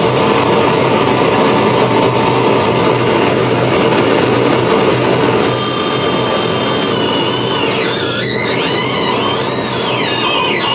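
Harsh noise music played live: a dense, loud wall of distorted noise. About five seconds in it thins out and gives way to high sweeping tones that swoop up and down.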